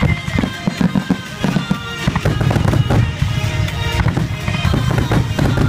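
Aerial firework shells launching and bursting in rapid succession, several bangs a second, over music that plays throughout.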